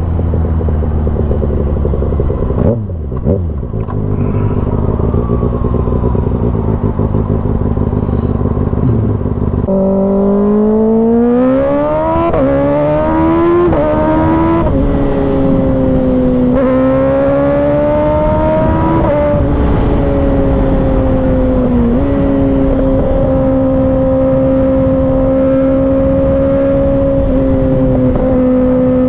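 Kawasaki ZX-6R's 636 cc inline-four running at a low steady note, then accelerating hard from about ten seconds in, its pitch climbing through three quick upshifts a second or so apart, each a short drop in pitch. It then settles into a steady higher cruising note with a couple of small dips.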